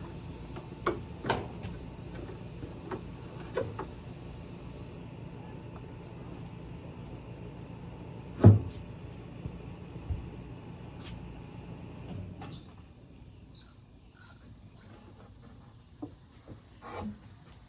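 Scattered knocks and clicks of parts being handled while a tractor's repaired diesel fuel tank is fitted back in place, with one loud thump about eight and a half seconds in. A steady low background noise drops away about twelve seconds in.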